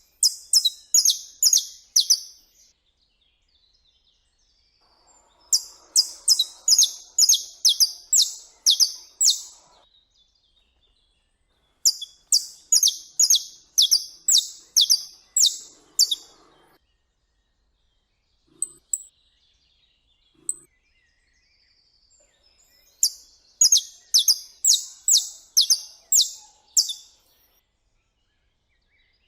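Saffron finch (canário-da-terra) singing: four phrases of sharp, high repeated notes, about two to three a second, each phrase lasting a few seconds with pauses of several seconds between.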